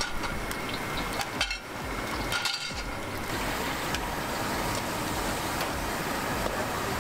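Street-food cooking: a steady hiss from gas wok burners and hot oil, with a few light metal clinks of ladle and bowls in the first seconds.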